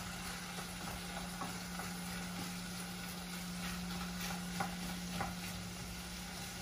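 Bacon frying in a pan of pork lard with a little oil and water, sizzling steadily with scattered small pops, while a utensil stirs and separates the pieces.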